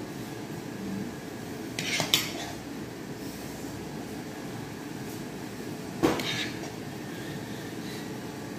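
Kitchenware clinking twice, once about two seconds in and again about six seconds in, over a steady low hum.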